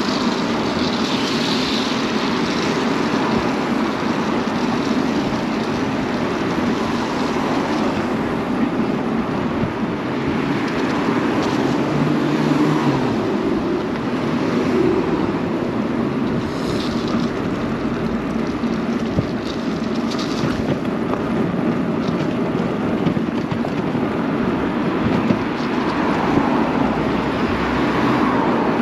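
Steady rush of wind and road noise from a bicycle ridden along a city street, with traffic around it.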